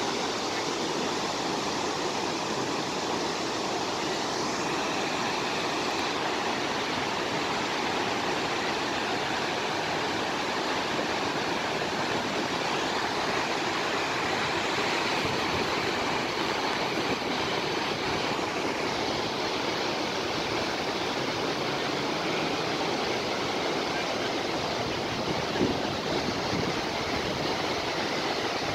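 Gokak Falls on the Ghataprabha River in flood, a steady, dense rush of heavy water plunging into the gorge; the high flow fills the whole sound. A single brief knock is heard near the end.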